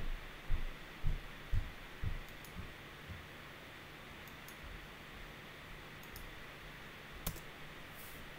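Computer mouse and keyboard clicks at a desk: soft low knocks about twice a second for the first three seconds, then one sharper click near the end, over a faint steady hum.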